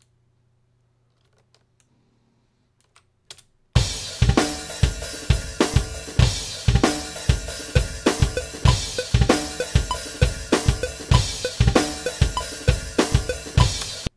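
A few faint computer clicks, then, about four seconds in, playback of a multitrack acoustic drum kit recording: kick, snare, hi-hat and cymbals in a steady beat, the kick hits freshly slip-edited to sit on the grid. The playback stops abruptly near the end.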